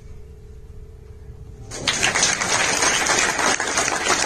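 A faint low rumble with a steady hum, then an audience starts applauding about two seconds in: dense, continuous clapping.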